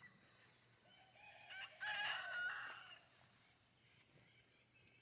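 A rooster crows once, a single call about a second and a half long.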